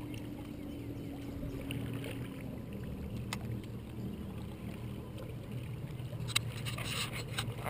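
Small boat's motor running with a steady low hum as the boat moves along, with water noise under it. A few sharp knocks near the end.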